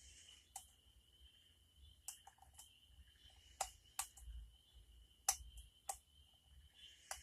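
Lock pick and tension wrench working the pins inside a lock's keyway: scattered, irregular small metallic clicks, about a dozen, the sharpest about four and five seconds in.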